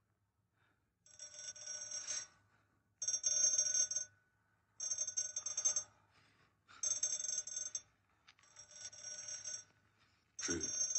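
An electric signal bell in a coal mine ringing in bursts of about a second each, roughly every two seconds, starting about a second in.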